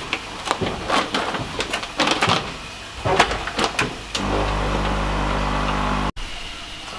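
Foil hop bag crinkling and rustling as it is handled and laid into an electric bag sealer, then the sealer running with a steady electric hum for about two seconds as it seals the bag, stopping abruptly.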